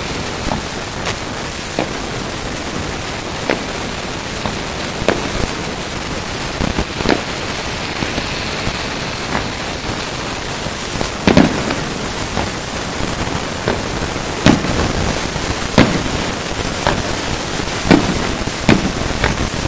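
Fireworks display: aerial shells bursting with sharp bangs at irregular intervals, about one a second, the loudest in the second half, over a steady hiss.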